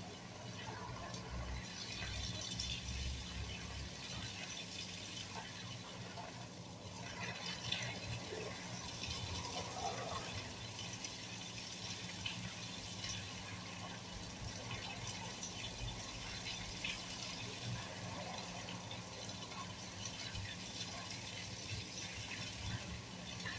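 Garden hose spraying a steady stream of water onto leaves and soil, a continuous splashing hiss.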